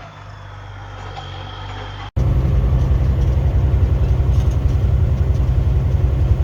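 A truck's diesel engine idling quietly, then, after an abrupt cut about two seconds in, running much louder with a dense low rumble as the truck drives.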